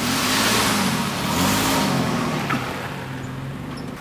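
Car engine revving, its pitch rising and falling twice.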